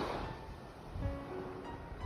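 Soft relaxation music with a few held notes over the wash of ocean waves, the surf ebbing between two breakers.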